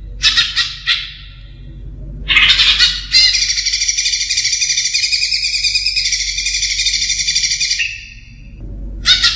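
Green leafbird (cucak ijo) singing: two short chattering phrases in the first three seconds, then one long run of rapid twittering song lasting about five seconds, which breaks off near eight seconds and starts again just before the end.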